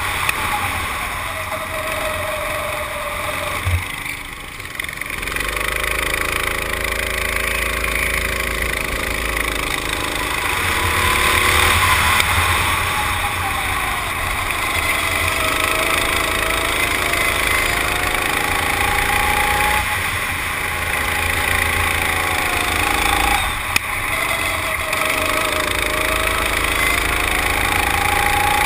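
Go-kart engine heard from the driver's seat on a moving kart, its pitch dropping when the throttle is lifted for corners and climbing again as it accelerates, three times over, with a steady rushing noise underneath.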